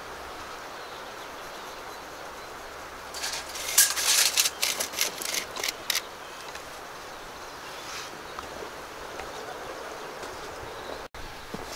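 A steady outdoor hiss, broken about three seconds in by a quick run of sharp clicks and rattles lasting about three seconds, as a steel tape measure is handled and reeled in.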